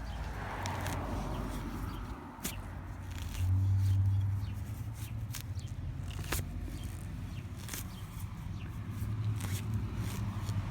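Scattered clicks and scrapes of a screwdriver stabbing and prying in lawn soil, over the low hum of a passing vehicle. The hum swells about three and a half seconds in and again near the end.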